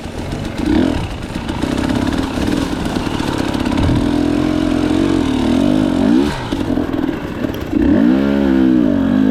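KTM 300 XC-W two-stroke single-cylinder dirt bike engine under way on a trail, revving up and down with the throttle, with the strongest swells about six seconds in and again near the end.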